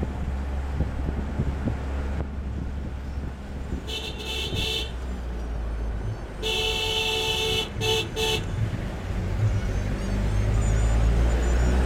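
Low, steady engine and road rumble inside a jeep's cab, with a vehicle horn honked in a quick run of short toots about four seconds in, then a longer honk followed by two short ones.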